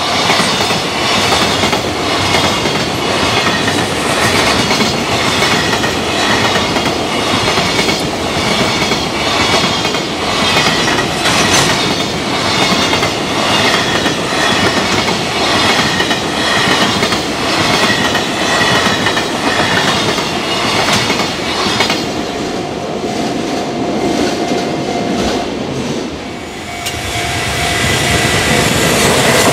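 Freight train's container wagons running past at speed, their wheels clattering over the rail joints in a steady clickety-clack. About 22 seconds in, the end of the train passes and the clatter stops, leaving the level-crossing warning bell's steady tone. Near the end, the rumble of the next approaching train builds.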